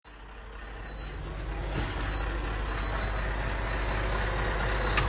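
A heavy diesel machine's engine running steadily, slowly getting louder, while its reversing alarm gives short high beeps about once a second.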